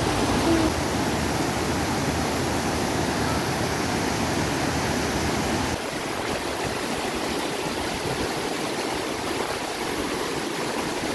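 Steady rush of flowing water, an even, unbroken noise that loses a little of its bass about six seconds in.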